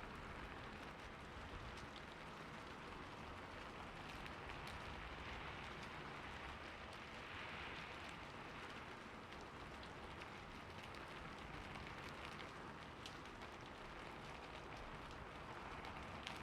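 Steady rain falling, an even patter with scattered individual drops ticking on a surface.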